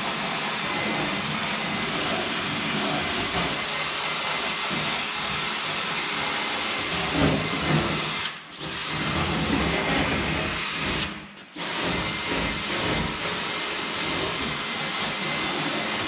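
Power wire brush scouring rust from steel truck body panels, running steadily with a hissing, scratching noise and stopping briefly twice, about halfway and about three quarters through.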